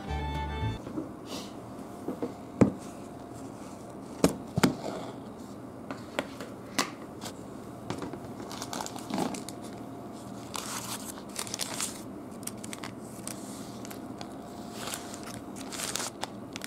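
Parchment cooking sheet crinkling and rustling as it is peeled off a cheesecake, in several spells. Earlier come a few sharp knocks.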